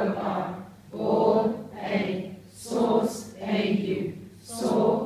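A large group of adults chanting phonics keywords and letter names in unison, word by word with short pauses between.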